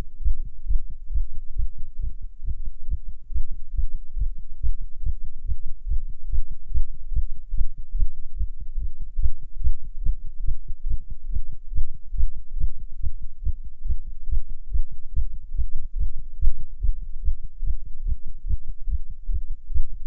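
Human heartbeat, close-recorded: a steady run of regular low thuds. It is the heart of a non-smoker smoking a cigarette, with nicotine pushing the heart rate up.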